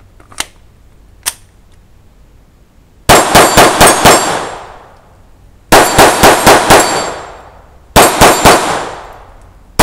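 Two sharp clicks as a Taurus TX22 .22 LR pistol is reloaded, then three rapid strings of shots, about six, six and four, roughly four a second, each string followed by a ringing tail as steel targets are hit; another string begins at the very end.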